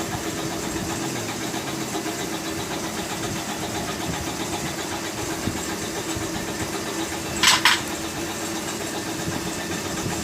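A car engine idling steadily in the background. Two quick, sharp clicks come close together about seven and a half seconds in.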